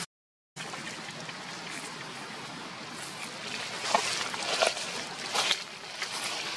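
After a brief silence, a steady outdoor hiss like wind on the microphone, with a few short crackles of dry leaves about four to five and a half seconds in as a macaque moves on leaf litter.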